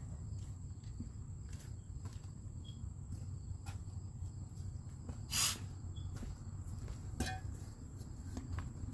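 Crickets chirping in a steady high-pitched drone over a low outdoor rumble, with one short, loud scrape about halfway through and a lighter knock a couple of seconds later.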